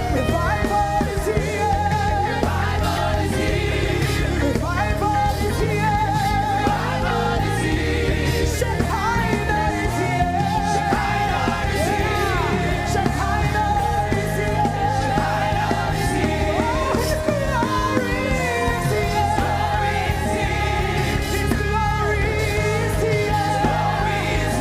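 Gospel worship music: voices sing long, wavering held notes over a band with a steady bass line and frequent cymbal strokes.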